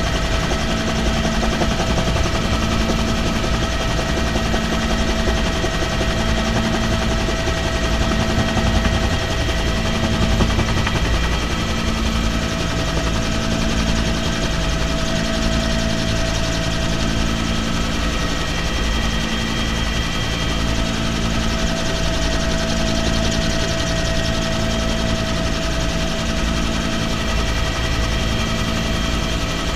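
Helicopter in flight heard from inside the cabin with the side door open: rapid, steady thudding of the rotor blades under a constant high whine, with a wash of rushing air.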